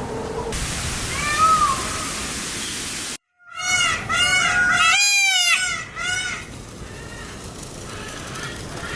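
Indian peacock calling with its loud, high-pitched, meow-like call. One short call comes about a second and a half in, then the sound cuts out abruptly, then a loud run of quickly repeated rising-and-falling calls comes between about four and six seconds in.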